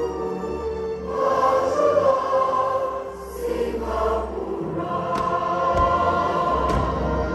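Music with a choir singing held, layered chords. A few faint, sharp cracks come in over it in the second half.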